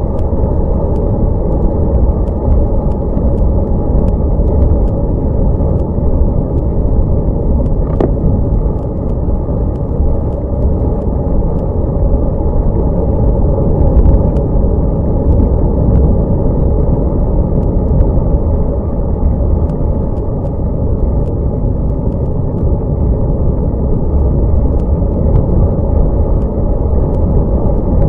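Wind buffeting a bike-mounted Cycliq camera's microphone as a road bike rides at speed on wet road: a loud, steady rumble that swells and dips.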